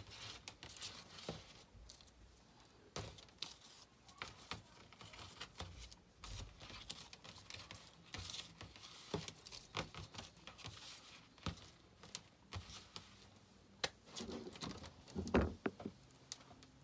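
Homemade stickers covered in clear packing tape being handled and stacked on a tabletop: on-and-off crinkling of the plastic with light taps and clicks, loudest in a short burst of rustling near the end.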